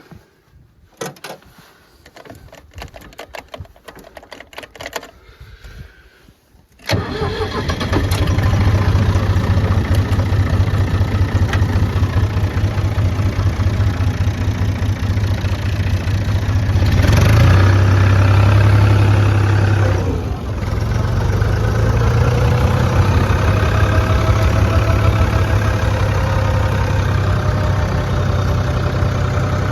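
Light clicks and knocks, then about seven seconds in the 1969 Fiat 450 DT tractor's diesel engine starts abruptly and runs steadily. It gets louder for a few seconds, dips briefly, and settles back to a steady run.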